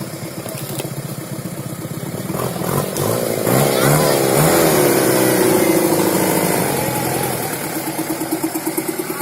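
A four-wheel-drive vehicle's engine revving, its pitch rising and falling, louder from about three seconds in and easing off near the end.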